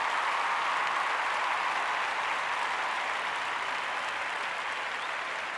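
Applause from a group of people, an even patter of clapping that peaks about a second in and slowly fades.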